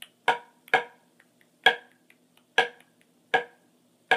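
Drumsticks striking a drum practice pad in an accent-tap warmup: loud accented strokes, six of them irregularly spaced about half a second to a second apart, with a few faint taps between.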